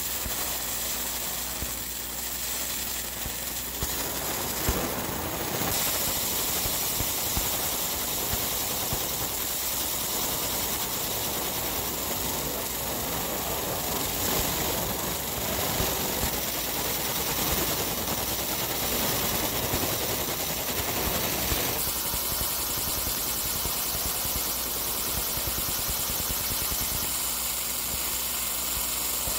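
Laser engraving machine marking a powder-coated manifold: a steady machine hiss and hum whose tone shifts a few times as the engraving goes on.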